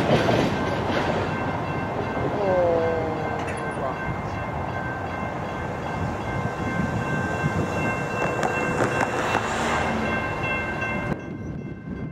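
CSX autorack freight train rolling away past the grade crossing, its wheels rumbling on the rails, with a steady high ringing tone over it. There is a brief falling squeal about two and a half seconds in, and the sound drops off abruptly near the end.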